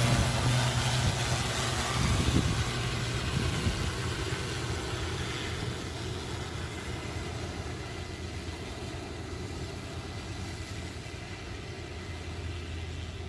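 Agricultural spraying drone's rotors running with a steady hum, growing gradually fainter.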